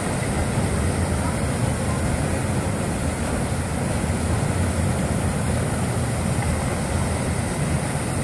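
Water fountain jet arching and splashing into a pond, a steady rushing noise with a heavy low rumble underneath.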